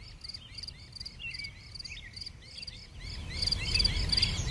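Nature ambience of crickets chirping in a steady, even rhythm about three times a second, with hooked, rising calls beneath them. About three seconds in, a low rushing noise swells up under the chirping.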